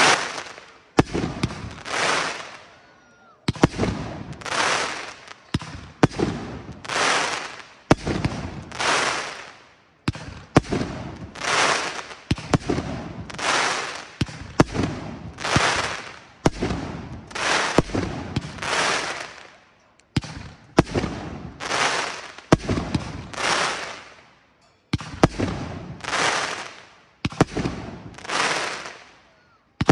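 Aerial firework shells bursting in quick succession, about one a second, each a sharp report followed by a swelling, fading crackle of glittering stars.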